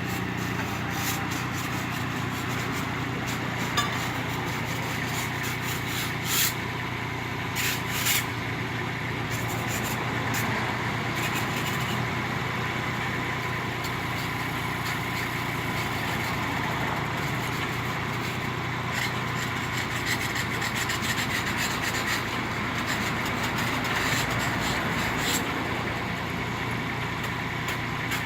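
Small excavator's diesel engine running steadily, with a few sharp knocks and scrapes from the work.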